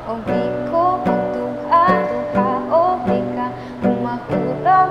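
Acoustic guitar with a capo playing chords in a slow, steady rhythm, a new chord or picked pattern about every half second, as the interlude between sung lines of a slow ballad.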